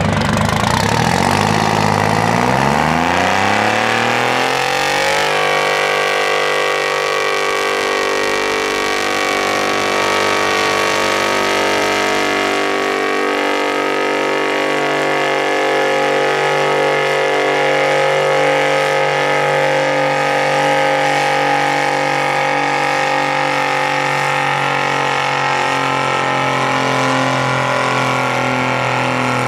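1960 Massey Ferguson 98 tractor's GM 3-71 two-stroke diesel revving up over the first few seconds, then running hard at steady high revs under load as it pulls a weight sled.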